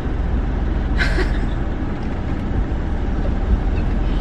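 Steady low rumble of a car's running engine heard from inside the cabin, with a brief higher-pitched sound about a second in.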